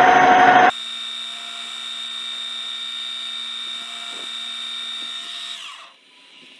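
Metal lathe cutting at a slow feed, the loud cutting noise stopping abruptly under a second in. The spindle and gear train run on with a steady whine, then wind down and fall in pitch to a stop near the end.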